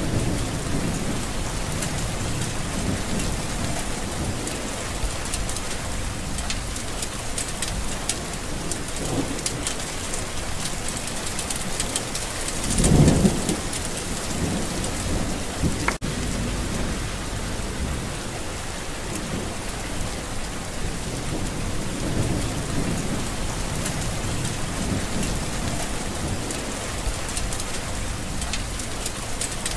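Steady rain in a windy storm, with uneven low rumbling throughout. A louder deep rumble swells about 13 seconds in, and a single sharp click follows a few seconds later.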